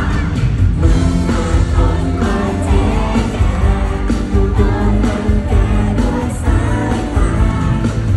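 Live pop song played loud over a concert sound system: a singing voice over a heavy bass backing.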